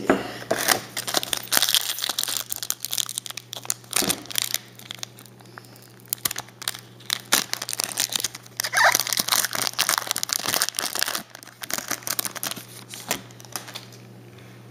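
A trading-card pack wrapper being torn open and crinkled by hand, with the cards handled, in repeated irregular bursts of crackling.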